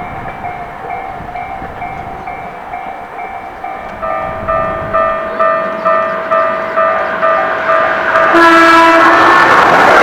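Japanese level-crossing alarm ringing in a steady repeating clang, growing louder as a train approaches. A single horn blast of about a second sounds near the end, and the train's passing noise breaks in at the very end.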